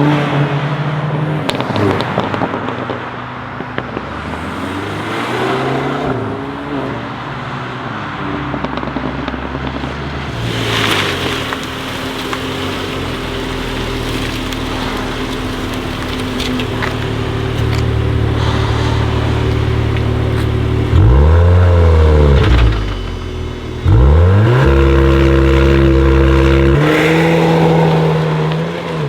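Volkswagen Golf 8R's turbocharged four-cylinder engine with an Akrapovic exhaust being revved in short blips, then running steadily. Near the end come two sharp, loud revs, followed by a few seconds held at steady high revs before the engine drops away.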